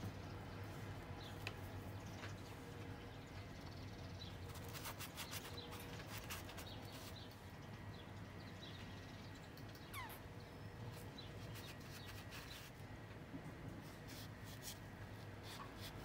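Paintbrush scratching and dabbing on wet watercolour paper in short scratchy bursts, over a low steady hum.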